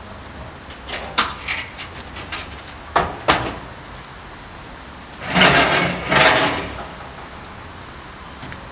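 1000-litre IBC tote in a galvanized steel cage on a steel pallet being pivoted by hand on asphalt: scattered knocks and rattles of the cage and pallet, then two longer scrapes of the pallet dragging across the ground about five and six seconds in.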